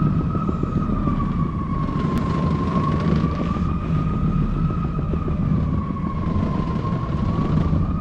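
Conveyor sled lift (magic carpet) running: a low rumble of the moving belt with a steady whine that wavers slowly up and down in pitch.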